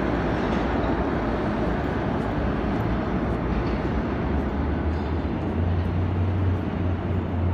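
Subway train rumbling in the tunnel, a steady loud roar with a low hum that grows stronger in the second half as the train approaches the station.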